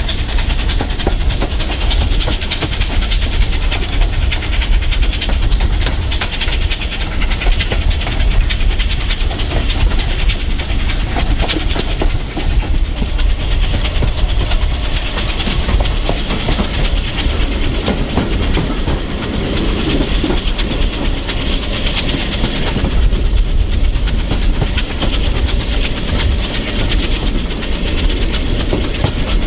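Ride in a steam-hauled railway coach heard from an open window: the wheels clatter steadily over the rail joints under a continuous rush of wind, with no marked change throughout.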